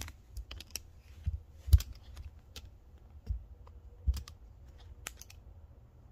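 Irregular light clicks and taps from handling small objects, with a few dull thumps, the loudest about two seconds in.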